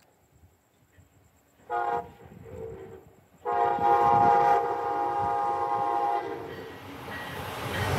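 Brightline passenger train's horn sounding for a road crossing: a short blast about two seconds in, then a long blast of about three seconds. Near the end the rumble of the approaching train rises.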